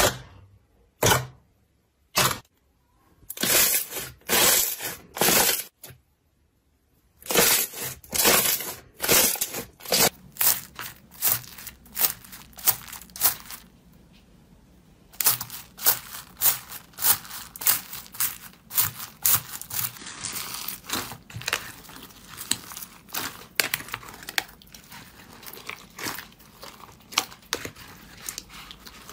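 Slime being pressed and squeezed by hand. In the first several seconds there are separate sharp wet pops and clicks. Then comes dense crackling and crunching, which in the second half is foam-bead slime (floam) being worked.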